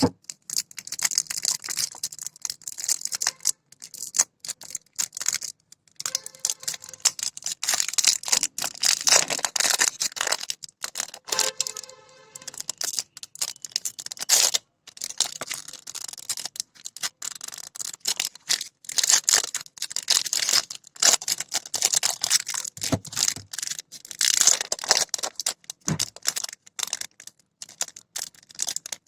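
Packaging being handled and opened by hand: dense crinkling and rustling with many quick clicks and taps.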